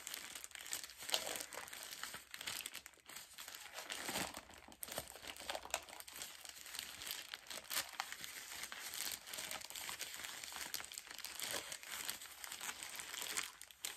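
Plastic poly mailer bag being crinkled and pulled open by hand: a continuous, irregular crackling of plastic.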